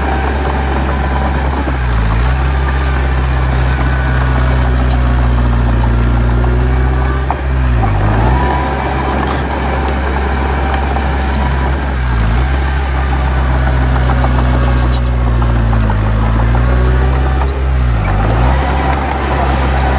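Heavy diesel engine of earthmoving machinery running steadily. Its pitch dips briefly and recovers about five times, as the load comes on and off.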